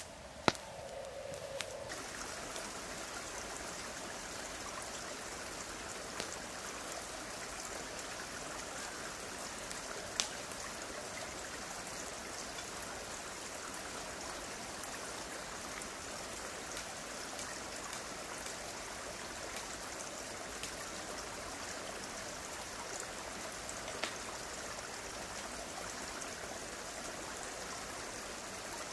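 Steady rushing of a mountain stream, setting in about two seconds in. A few sharp clicks stand out above it, the loudest about half a second in.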